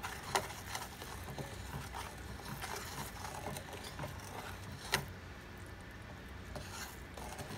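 Wooden spoon stirring boiling caramel in a stainless steel pot: soft scraping with small irregular clicks as the spoon works the bubbling sugar, and one sharper knock of the spoon against the pot about five seconds in. The caramel is nearly done.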